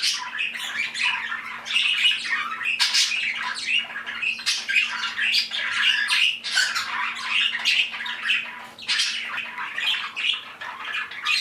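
A room full of pet budgies and other small parrots chattering and squawking together, many short calls overlapping, a little noisy as the flock settles down for the night.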